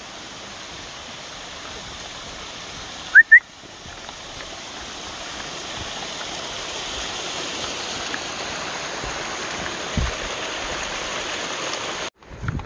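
Steady rush of a small rain-swollen creek cascading over rocks, growing louder and then cutting off suddenly near the end. Two short rising whistles about three seconds in are the loudest sound.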